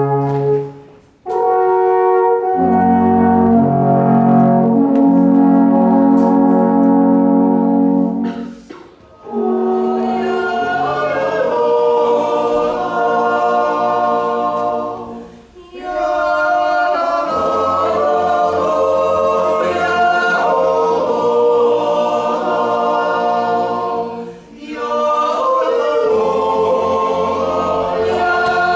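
Three alphorns playing long held notes, with a short break about a second in, until about eight seconds in. After a brief pause, a choir sings unaccompanied in several parts, with short breaks between phrases.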